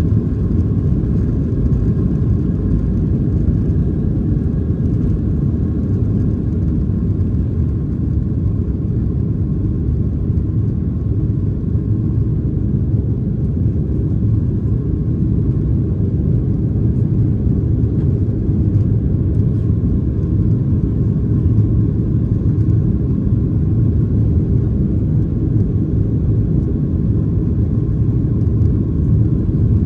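Cabin noise of a Boeing 737-700 heard from a seat over the wing, its CFM56-7B engines at takeoff thrust: a steady deep rumble with a faint even whine above it, through the end of the takeoff roll, liftoff and initial climb.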